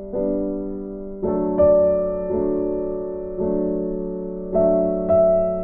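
Background music: soft piano or electric-piano chords, a new chord struck about once a second and left to fade.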